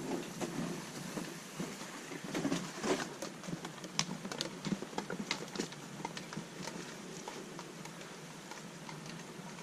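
Irregular footsteps on a forest trail as a person walks past carrying a canoe on the shoulders. A dog's paws follow near the end.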